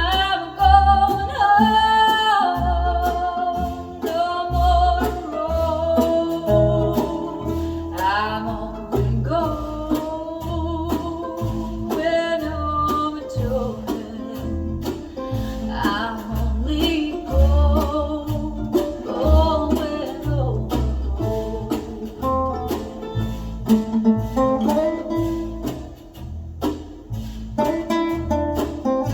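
A song with a singing voice, plucked guitar and a steady bass beat, played back through a pair of restored Pioneer CS-410 loudspeakers.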